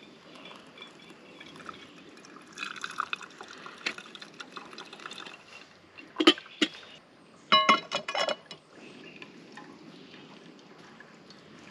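Coffee being poured at a camp stove, then two sharp clicks and a short rattle of ringing metal clinks from camp cookware.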